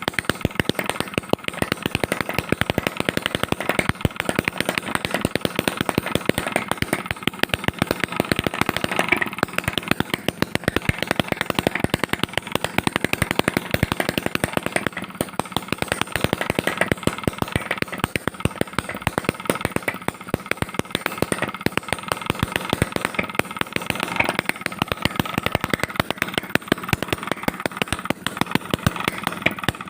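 Homemade two-stroke petrol engine built from a refrigerator compressor, running steadily with a rapid, even train of firing strokes.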